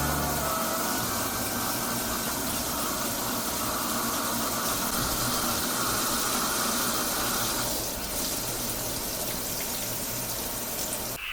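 Water running steadily, as from a tap, easing slightly about eight seconds in.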